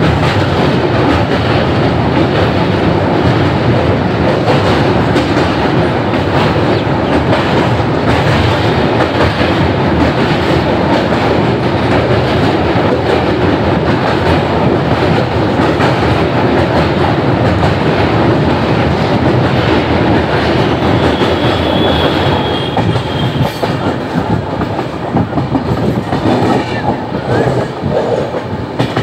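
Himgiri Express passenger train running at speed over a steel truss bridge, heard from an open coach doorway: a loud, steady rumble and clatter of wheels on the rails. About three-quarters of the way through it turns quieter and more uneven as the train runs off the bridge onto ordinary track.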